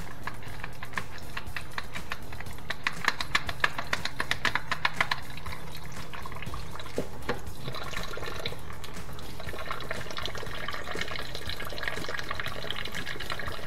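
A quick run of clicks and clatter for a few seconds, then water running steadily, like a tap, through the second half, with faint music underneath.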